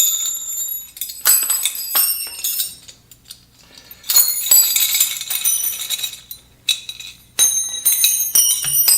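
Steel dirtbike wheel spokes clinking and jangling against one another and the hub as they are taken off, with sharp metallic strikes every second or so and a high ringing after each.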